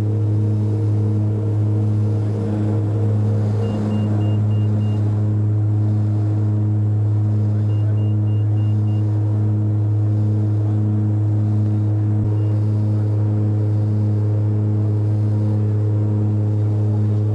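Airliner cabin noise in flight: a steady engine drone with a strong low hum and a faint regular pulsing beat.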